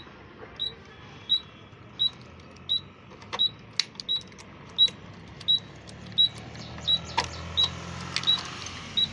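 A key working in a truck's cab-door lock, with sharp metal clicks and rattles in two clusters, about three seconds in and again about seven seconds in. Over it a high, short chirp repeats steadily about every 0.7 seconds, and a low hum grows toward the end.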